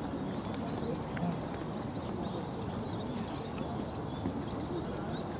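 Birds chirping continuously, many short quick calls overlapping one another, over a low background murmur of people's voices.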